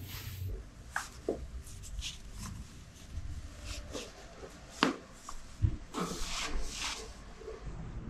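Several sharp pops of spinal joints cracking under the weight of a massage therapist standing and stepping on a person's back, the two loudest about five seconds in.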